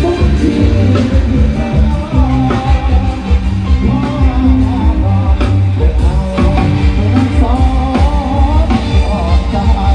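Loud band music with a singer, electric guitar and drum kit, played through a parade truck's sound system, with a heavy bass beat under a wavering vocal melody.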